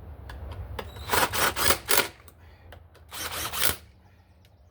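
Hand ratchet clicking in short strokes, a cluster about a second in and another around three seconds, as the mounting bolts of a new throttle body are run in on a Chevy Colorado. A low steady hum lies underneath.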